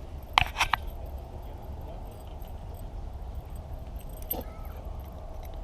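A quick run of three or four sharp metallic clicks, then a single click near the end, over a steady low rumble.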